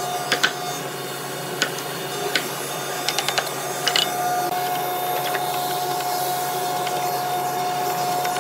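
Steel hand chisel cutting into hardwood: a few sharp knocks and taps in the first half, including a quick run of three, over a steady machine hum. A steady tone joins the hum about four seconds in.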